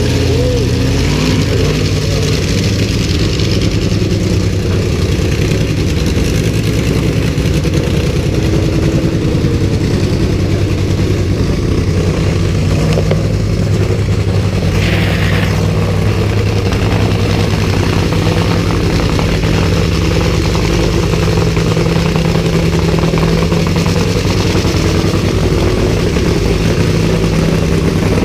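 Nitro funny car engine running in the pits during a warm-up, holding a steady loud idle whose note shifts slightly about halfway through.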